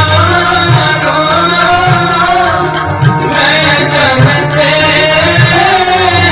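Sikh kirtan: a male voice singing a shabad over a sustained harmonium accompaniment, with low drum strokes keeping a steady beat about twice a second.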